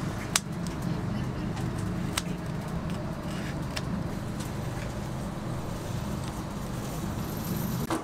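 Kitchen scissors snipping through a whole roast chicken: a few sharp clicks of the blades, one each second or two, over a steady low hum.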